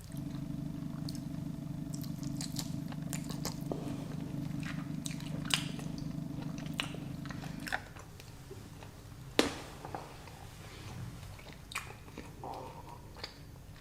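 Close-up chewing and biting on a pork rib, with scattered sharp clicks and crunches. A steady low hum runs underneath and stops about eight seconds in.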